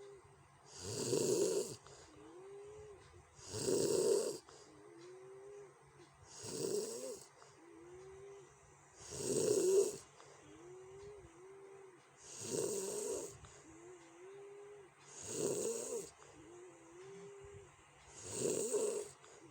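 A sleeping person snoring: seven harsh snores, one about every three seconds, with a softer whistling tone between them.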